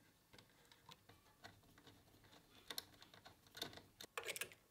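Faint, scattered small clicks and taps of hands working on electrical parts: a wire being pushed into a terminal block, then a D-sub plug being fitted onto its socket, with the clicks busiest near the end.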